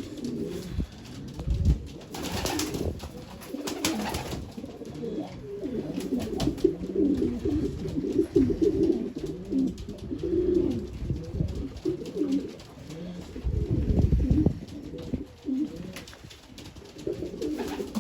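Domestic stock pigeons cooing in a loft, several birds overlapping continuously. A few brief noisy bursts come about two and four seconds in.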